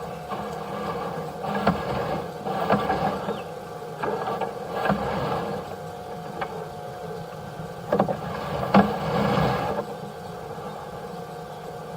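A steady mechanical hum holding several tones, with scattered knocks and short scraping bursts on top of it.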